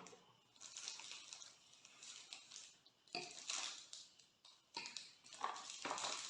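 Cardboard laptop box and packaging being handled and pulled open: irregular rustling and scraping in three short spells.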